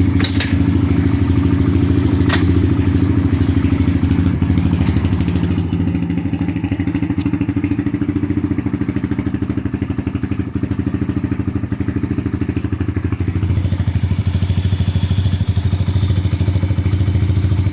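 Apollo 140cc pit bike's single-cylinder four-stroke engine idling steadily on fresh oil, run after an oil change to check for leaks.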